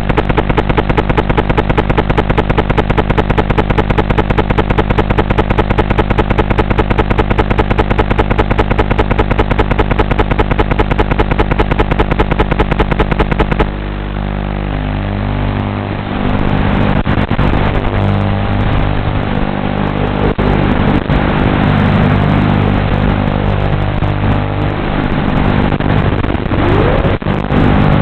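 A loud buzz with a rapid, even pulse, which changes abruptly about halfway through. From there on the FPV quadcopter's brushless motors run, rising and falling in pitch with the throttle as it takes off and flies.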